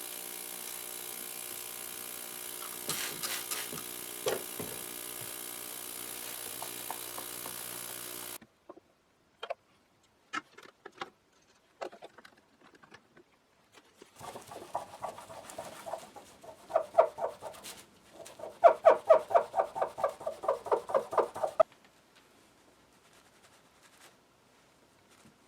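A small electric motor runs steadily with a few clicks and cuts off about eight seconds in. Scattered small clicks follow, then rapid back-and-forth scrubbing strokes, about five a second, that grow louder before stopping.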